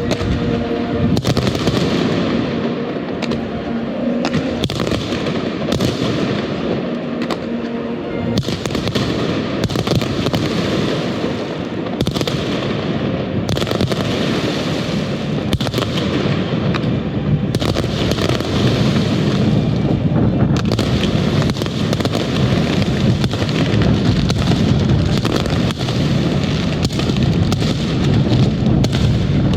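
Fireworks show: a dense, continuous barrage of aerial shells bursting and crackling, with bursts overlapping one another. Music with held notes plays under the first third.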